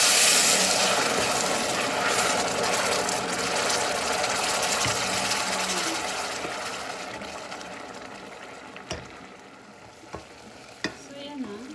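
Liquid hitting a hot stainless steel pot of toasted risotto rice, sizzling and hissing loudly and fading steadily over several seconds while it is stirred with a wooden spoon. Near the end the spoon knocks against the pot a few times.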